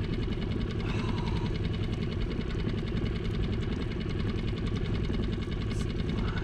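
A small boat motor running steadily, a low even drone with a fine regular pulse.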